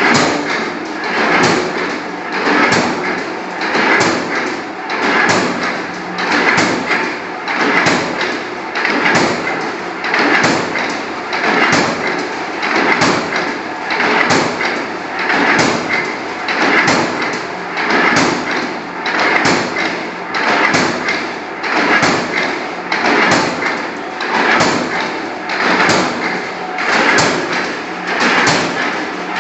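Mechanical flywheel power press with a multi-punch perforating die punching round holes in a steel sheet, striking in a steady rhythm of about one stroke a second, each stroke a sharp metallic clack.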